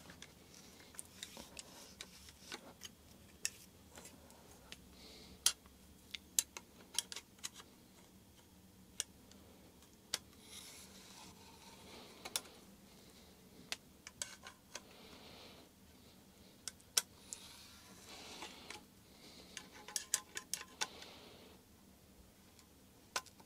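Faint, irregular clicks of hand tools and metal parts, with a few brief rubbing and scraping sounds, as the top section of a Headshok suspension damper is tightened up.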